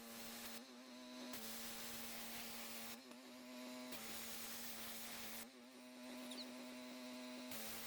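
Gas pressure washer engine running steadily while the spray hisses against the pavement; the spray hiss cuts out briefly three times and comes back, with a slight change in the engine note each time.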